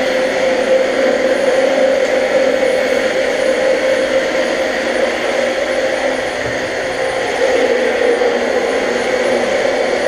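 Vacuum cleaner running steadily: a motor whine over the rush of air.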